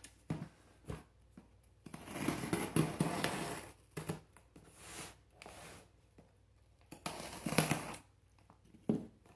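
Scissors slitting the packing tape on a cardboard box, in three noisy scraping strokes (the longest about two seconds in, another about seven seconds in), with light knocks as the box is handled between them.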